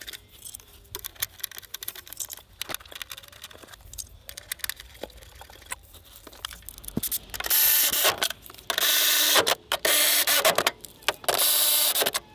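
Small metal clicks and clinks as the steel fuel-pump access plate is set in place and its bolts are handled, then a cordless electric ratchet runs in four short bursts of under a second each, driving the plate's bolts down.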